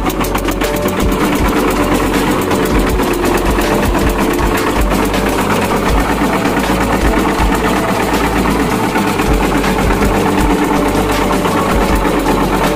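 Kirloskar single-cylinder diesel engine of a concrete mixer running steadily with a fast, even chugging beat, just started after its crank plate was refitted and its belt pulley tightened.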